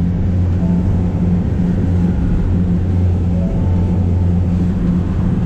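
A motor boat's engine running at a steady low drone, with wind and sea noise over it.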